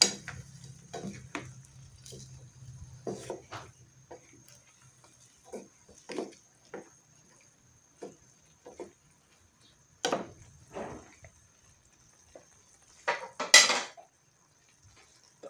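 Wooden spatula and metal spoon stirring chicken feet in a frying pan, with irregular clatters and scrapes against the pan, the loudest near the end.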